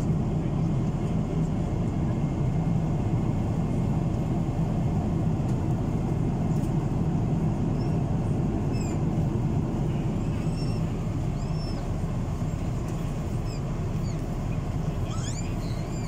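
Airliner cabin noise in flight: the steady low rumble of the jet engines and rushing air, heard from a window seat beside the engine.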